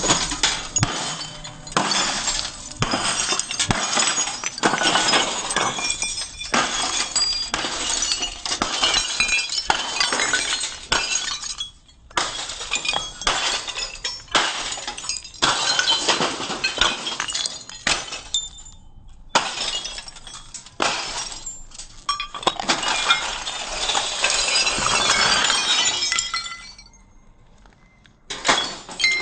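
CRT picture-tube glass being struck over and over with a long rod, cracking and shattering, with shards clinking and crunching as it breaks up. The blows come in spells with a few short pauses between them.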